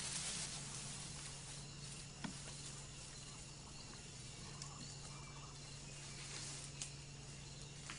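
Faint rainforest ambience: a steady hiss of insects over a low steady hum, with a couple of sharp clicks, about two seconds in and near the end.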